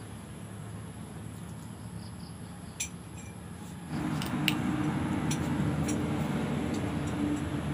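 A low steady hum, then about four seconds in a louder, steady motor drone with a constant low tone starts and runs on. Over it come a few light clicks from cooked clam shells being handled and pried open.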